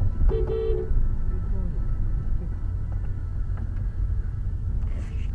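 Car driving, with steady road and engine rumble heard from inside the cabin. A brief car horn honk sounds about a third of a second in.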